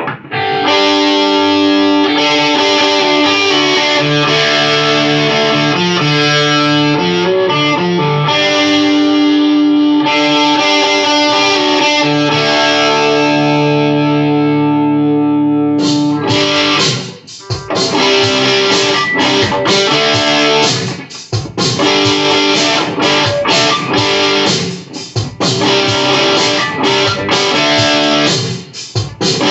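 Electric guitar playing: held, ringing chords at first, then from about halfway through, choppy rhythmic strumming broken by short stops.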